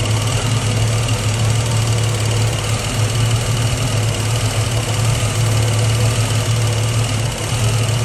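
Ford 200 inline-six engine running steadily with a strong, even low hum. The engine has a pinhole vacuum leak at a brazed joint of the head's two-barrel conversion.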